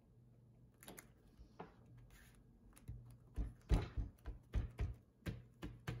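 Hands pressing and patting a freshly glued paper panel down onto a cutting mat. A few soft clicks and rustles come first, then a quick run of about ten dull taps and thumps in the second half.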